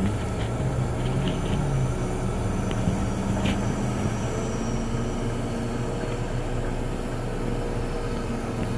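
Mitsubishi Pajero Mini's 0.7-litre turbo engine running steadily under load as its wheels spin in deep mud: the vehicle is stuck in a rut.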